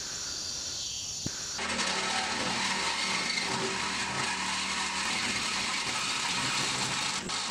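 Corded DeWalt reciprocating saw cutting through a steel mobile-home frame rail: a steady, harsh blade-on-metal buzz that starts abruptly about a second and a half in, after a quieter stretch, and cuts off just before the end.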